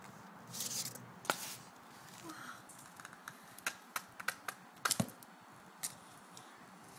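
Sulcata tortoise walking on stone tiles: irregular light clicks and taps of its claws and shell on the tiles, with a brief scrape about half a second in and the taps coming more often in the second half.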